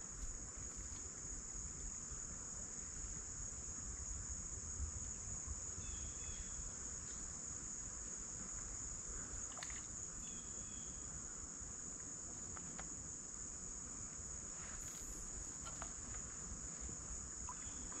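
Steady chorus of insects, a continuous high-pitched buzzing trill.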